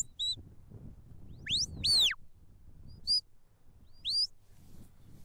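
A sheepdog handler's whistle commands to a working border collie: a string of sharp whistles, some rising steeply and some arching up then falling, with short high blips in between, about one a second. They steer the dog as it brings the sheep into the shedding ring.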